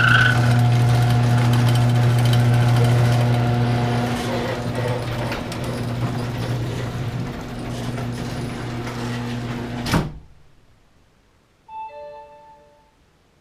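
Garage door opener motor running steadily with a deep hum as it drives the door, then stopping abruptly with a clunk about ten seconds in. A short electronic chime sounds near the end.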